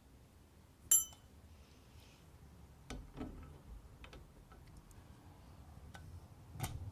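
Door lock hardware being handled: a sharp, ringing metallic clink about a second in, then scattered lighter clicks and a duller knock near the end.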